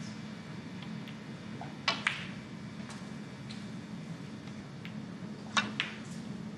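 Snooker cue and balls clicking: two pairs of sharp clicks, the pairs about three and a half seconds apart, over a low steady hum of room tone.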